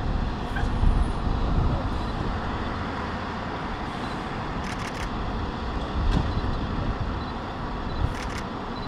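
Airport fire engines running steadily with their pumps working, a continuous rumble that swells louder about a second in and again around six seconds in.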